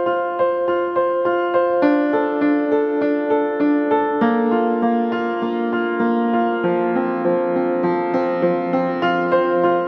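Background piano music: gentle, evenly paced notes over held chords.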